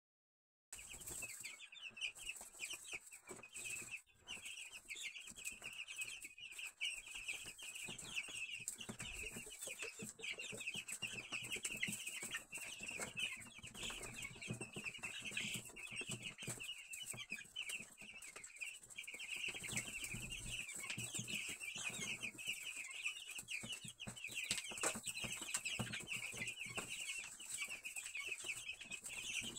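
A brood of young chicks peeping all together, a dense, unbroken chorus of short high chirps, with scattered small clicks.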